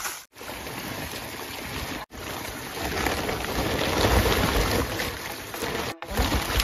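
Water gushing steadily from an electric pump's outlet pipe, a rushing splash, broken by three short cuts.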